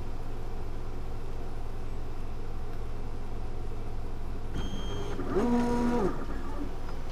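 Prusa i3–style 3D printer running, with its fans humming steadily. About five seconds in, its stepper motors move the bed and print head with a whine that rises in pitch, holds and falls away.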